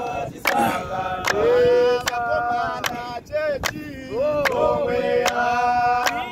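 A group of men singing unaccompanied in harmony, with held notes that slide between pitches, kept in time by a steady hand clap a little faster than once a second.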